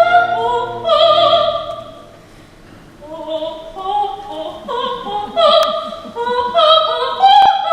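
Operetta singing in full classical voice with accompaniment: a long held note with vibrato about a second in, a brief quiet passage, then the sung phrases resume.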